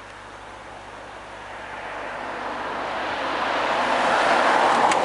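A car passing on the road: its road noise swells over a few seconds to a peak near the end, with a brief click just before the end.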